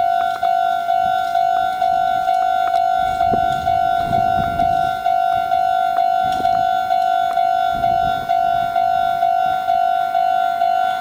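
Japanese railway level-crossing alarm ringing, an electronic bell tone repeating evenly about twice a second. Beneath it, a Meitetsu 6000-series train's wheels rumble past in low bursts, mainly about three to five seconds in and again around six and eight seconds.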